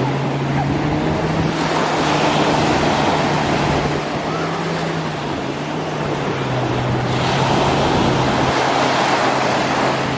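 Wind buffeting the microphone and water rushing past, over a steady low engine drone that shifts slightly in pitch partway through, as from a motorboat under way.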